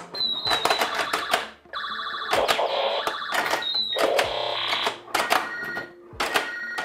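Electronic desktop pinball toy in play: sharp plastic clicks of the flippers and ball mixed with the toy's electronic beeps, chirps and tone effects from its small speaker.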